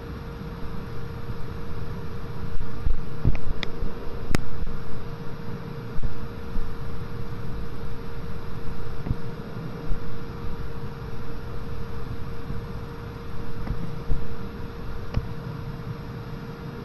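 Uneven low rumble and a steady hum of background noise, with a few sharp taps of a stylus on a tablet screen as points are plotted: two a few seconds in and one near the end.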